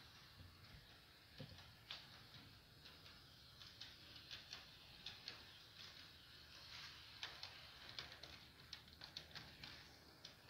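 Faint, irregular clicking and ticking of a BNSF GP40-2R model diesel locomotive running along sectional model-railway track, the clicks coming more often as it nears.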